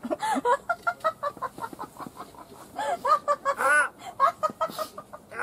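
Several people laughing hard, a rapid string of 'ha-ha-ha' that swells about three seconds in.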